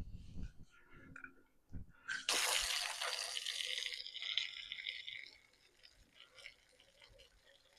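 Water from a hose spraying into the inside of a car wheel to wash out packed mud, a hissing spray of about three seconds that starts a little over two seconds in and trails off. The mud was throwing the wheel badly out of balance.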